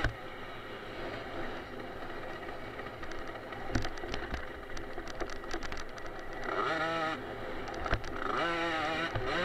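Small 50cc two-stroke engine of an automatic youth motocross bike running hard, its pitch rising and falling with the throttle in several sweeps in the second half. Two sharp knocks come from the bike hitting bumps, one about four seconds in and one near eight seconds.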